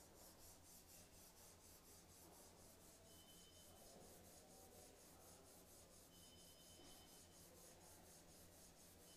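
Faint, quick back-and-forth rasping of 80-grit sandpaper on a hand sanding block over cured polyester body filler, about five strokes a second, cutting the filler smooth.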